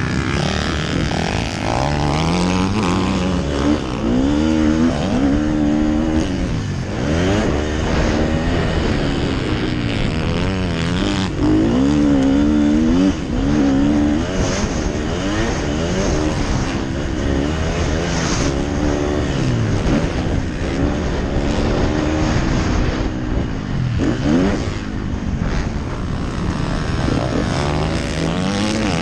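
Motocross bike's engine heard from on board, revving up and dropping back again and again as the rider accelerates, shifts and brakes through the corners, over a constant rush of wind and track noise.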